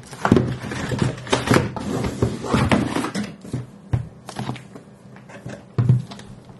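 Cardboard scraping and rustling as a boxed MacBook Pro is slid out of its brown cardboard shipping box, with dull thumps of cardboard knocking. It is busiest in the first few seconds, then a few single knocks.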